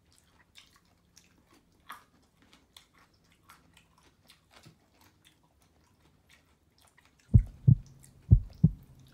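A person eating pasta, chewing with small wet clicks of the mouth and fork. From about seven seconds in, loud low thumps come in pairs about once a second.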